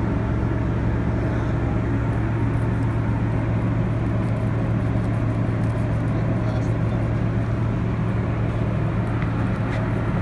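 Steady low drone of a ship's engines and machinery, an even hum that does not change.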